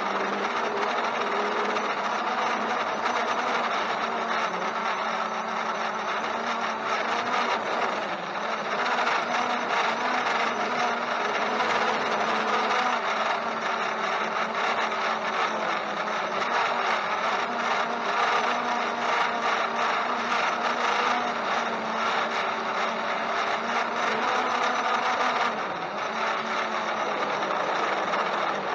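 Holystone HS700D quadcopter's motors and propellers whirring steadily in strong wind, their pitch drifting slightly up and down, with fine rapid buffeting over the top. The sound dips briefly twice.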